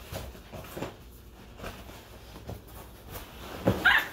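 Soft rustling and rubbing of a vinyl inflatable swim ring as it is handled and pulled down over the body, with one louder rub just before the end.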